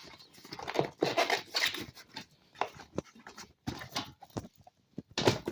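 Hands working a tube and tire insert into a fat e-bike tire on its rim: irregular rubbing and squeaking of rubber with a few sharp knocks.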